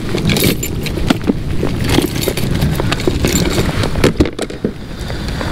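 Irregular clicking and clattering of tools and lures as a hand rummages through an open plastic tackle tray.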